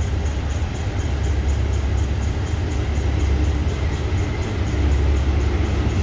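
Diesel-electric locomotive, an SRT General Electric unit no. 4040 hauling a freight train, approaching slowly: a deep engine rumble that grows steadily louder as it draws near.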